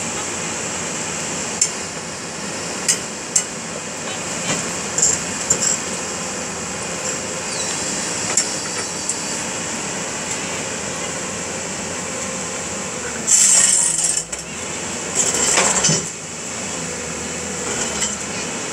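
Tracked excavator on a lorry bed running while it braces its bucket against the ground, a steady noisy background with a few sharp metallic clinks and knocks in the first several seconds. Two louder surges of noise come about two-thirds of the way through.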